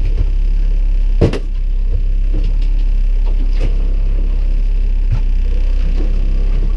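Boat's outboard motor running steadily, a low drone, with a sharp knock about a second in and a few lighter clicks as gear is handled in the boat.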